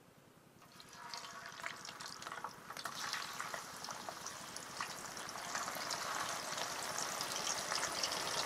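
Green banana slices frying in hot oil: a crackling sizzle that starts about a second in and grows steadily louder.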